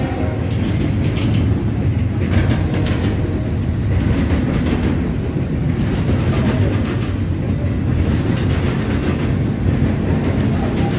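Double-stack intermodal container freight train passing, its wheels rumbling and clacking steadily over the rails.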